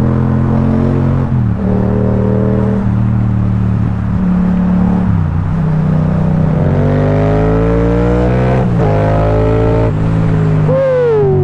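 Yamaha XSR700's 689 cc parallel-twin running through an Akrapovic carbon full-system exhaust while under way. The revs hold mostly steady with brief dips, climb under acceleration from about seven seconds in, then drop sharply near nine seconds. A falling tone is heard near the end.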